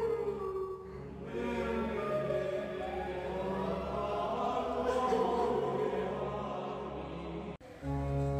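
Choral music: sustained singing voices in slow, held notes, cutting off abruptly near the end.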